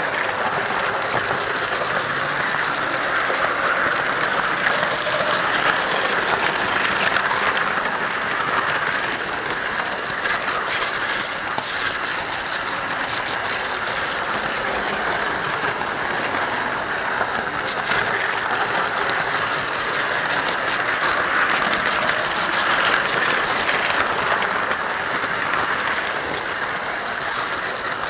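Model trains running on the layout: the steady whirr and rumble of small electric motors and metal wheels on the track, heard close up from on board, with a few sharp clicks along the way.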